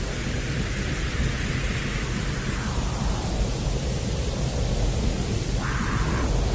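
Steady white-noise track, a constant rushing hiss weighted toward the low end, played as a baby sleep sound meant to resemble the noise heard in the womb. The upper hiss brightens briefly near the end.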